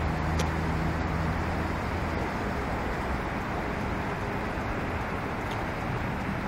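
Steady outdoor vehicle noise: an even hiss with a low hum that fades out about two seconds in.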